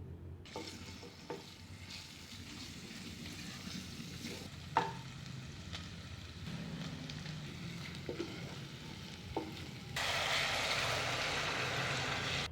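Food sizzling as it fries in oil in a pan, stirred with a utensil that knocks against the pan now and then, the sharpest knock about midway. About ten seconds in, the sizzling turns suddenly louder and brighter.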